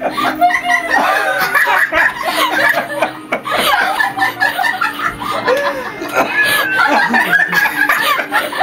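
A man laughing hard, one laugh after another without a break.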